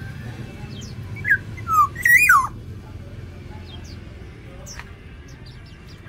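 Black-naped oriole calling: a short phrase of three loud, fluty whistled notes that glide up and down, about one to two and a half seconds in. Faint, short high chirps sound around it.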